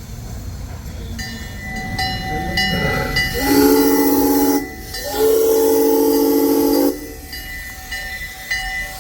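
Train whistle blowing two long blasts, a short one about three and a half seconds in and a longer one right after it.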